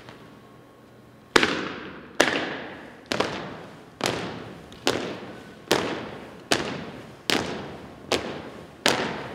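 A drill team stamping their feet in unison while marching on a gymnasium's hardwood floor. About ten loud, sharp stomps come a little under a second apart, starting about a second and a half in, and each one echoes around the hall.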